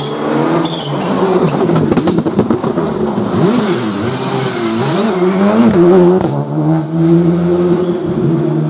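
Rally car engine at full throttle on a tarmac stage, revving up and down through gear changes as it comes past, then holding a steady note for the last couple of seconds.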